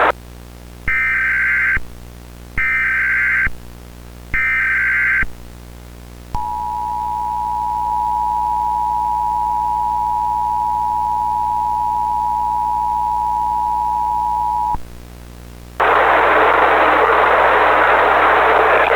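Emergency Alert System broadcast tones: three short bursts of SAME header data, then the two-tone attention signal (853 and 960 Hz) held steady for about eight seconds. After a brief pause about fifteen seconds in, a steady hiss of noise follows.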